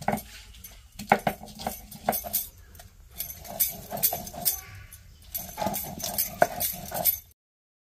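Hand-held grinding stone crushing and rubbing garlic on a stone grinding slab: repeated knocks and scrapes, about two to three a second with short pauses, cutting off suddenly near the end.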